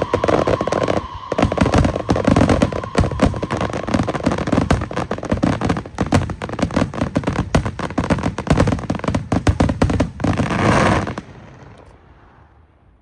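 Electronic fireworks going off in a dense, rapid string of firecracker bangs. The bangs stop abruptly about eleven seconds in, and the sound fades away after them.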